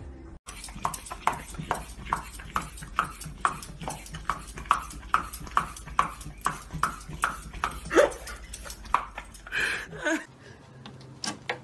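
A dog chewing a carrot: a steady run of crunches, about two or three a second.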